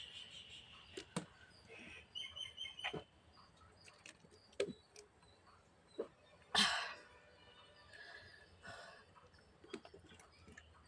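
A person drinking cold lemon juice from a plastic bottle: scattered lip smacks and sips, and one loud breathy exhale about six and a half seconds in. A few quick high chirps sound about two seconds in.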